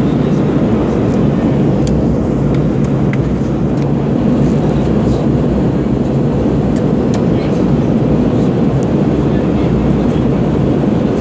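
Steady rumble of a jet airliner's cabin in flight: engine and airflow noise heard at the window seat, with a few faint ticks.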